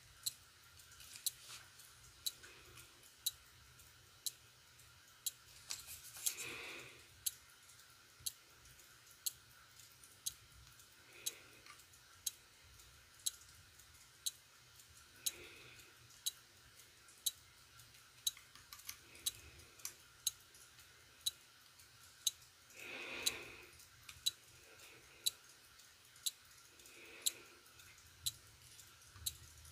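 Faint, sharp clicks spaced evenly about once a second, over a steady low background hum.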